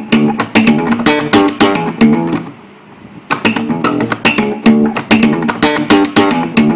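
Acoustic guitar played as a bassline: a run of quick, sharply attacked low plucked notes in a rhythmic riff. It breaks off briefly about two and a half seconds in, then picks up again.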